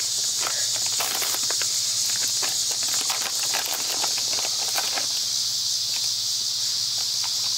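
Steady high-pitched chorus of insects, trilling without a break, with scattered short clicks and rustles over it.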